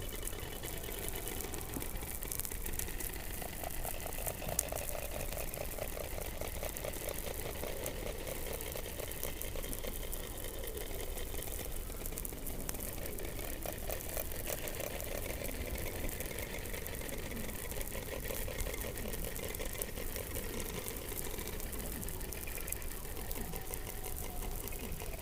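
Underwater sound from beneath the Antarctic ice: a rapid pulsed buzzing in two bands, one low and one high, that swells and fades over several seconds. Scattered crackling clicks run through it, and a few short falling calls come low down late on.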